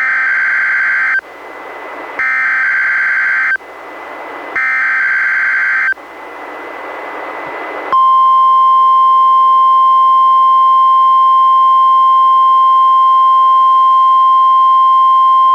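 NOAA Weather Radio Required Weekly Test coming through a Reecom R-1630 weather radio: the SAME digital header sent three times as short warbling data bursts, each a little over a second long with radio hiss between them. About eight seconds in, the steady 1050 Hz warning alarm tone starts and holds as one unbroken tone.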